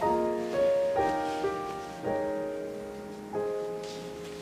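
Soft background piano music: slow chords struck about once a second, each left to fade.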